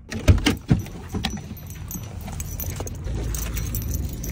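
Metal jingling and clinking from a dog's collar and leash hardware as the dog is walked on a rope leash, loudest in the first second or so. A steady low rumble runs underneath and grows louder about three seconds in.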